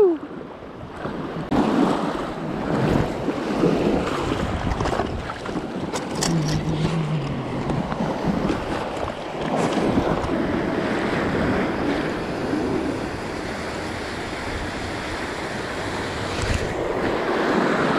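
Small surf washing in around the feet at the water's edge, with wind buffeting the microphone.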